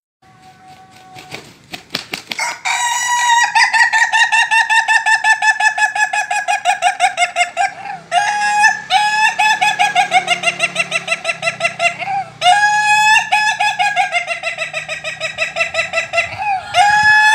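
A rooster giving long, laughing crows, each a rapid stuttering string of notes that rises at the start and then slowly falls. There are three full crows and the start of a fourth, beginning a couple of seconds in after a short quiet.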